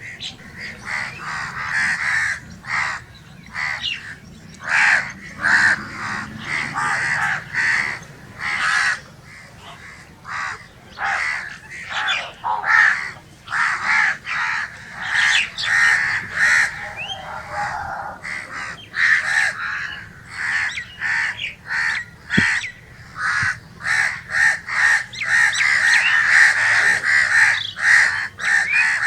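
Crows cawing over and over, short harsh calls coming thick and fast and often overlapping, as from several birds at once.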